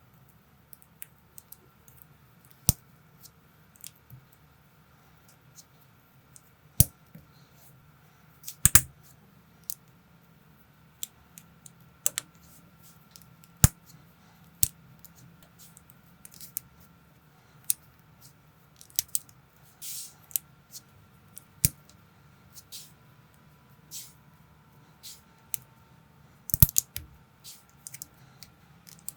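Plastic building bricks and minifigure parts being handled and snapped together: sharp clicks and taps at irregular intervals, some in quick little clusters, over a faint steady hum.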